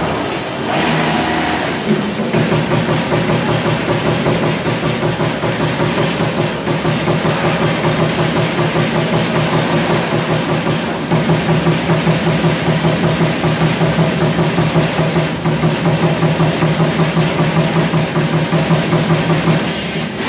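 TRUMPF TruMatic 2020R CNC punch press punching a metal sheet in a rapid, even series of strokes over a steady machine drone. The strokes start about two seconds in, grow louder about halfway through, and stop just before the end.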